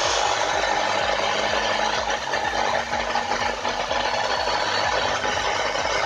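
IFB front-load washing machine motor, a brushed motor with field winding and carbon brushes, running at full speed on direct mains with a steady, dense rattling noise. It is sparking heavily at the armature, a sign that the motor is faulty.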